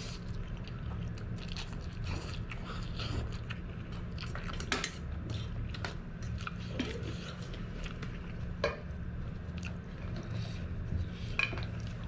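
A person eating spicy fried instant noodles with purslane: wet chewing and slurping of noodles, with a metal fork clicking sharply against the pan now and then, three times most loudly.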